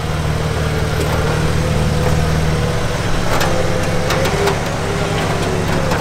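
Jeep engine running low and steady as the Jeep crawls slowly off-road over dirt and rock, with a faint wavering whine above it and scattered short clicks and knocks.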